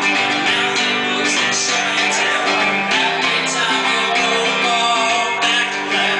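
Acoustic guitar strummed through a song, chords ringing on steadily.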